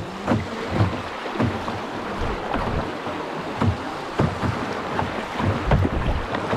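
Water splashing and knocking against a small paddled boat on the river, in irregular strokes about twice a second.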